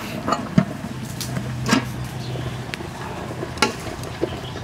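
Lid of a large aluminium steamer pot being taken off, giving a few sharp metal clanks and knocks, the loudest in the first two seconds. A steady low hum runs in the background.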